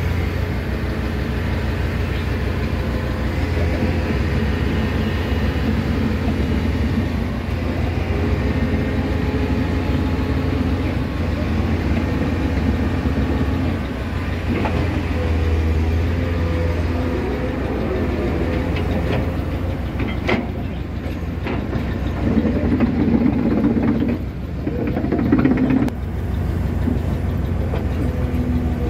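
A heavy engine running steadily with a low, even hum. A few sharp metallic knocks come about twenty seconds in and again a little later.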